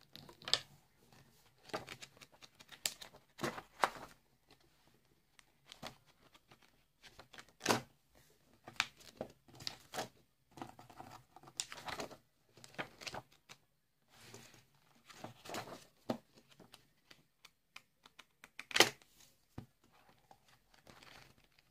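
Close-up ASMR paper sounds from a ring-binder notebook: blank pages rustling and being turned, with irregular light taps and a few sharp clicks. The loudest click comes a little before 19 seconds.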